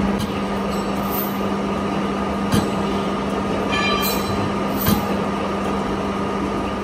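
Vertical turning lathe running, its large chuck table turning a gear blank: a steady low machine hum with a mechanical rumble, a few sharp clicks, and a short high squeal about four seconds in.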